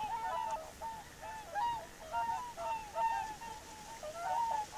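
A large flock of whooper swans calling: many short, overlapping honks that repeat without a break.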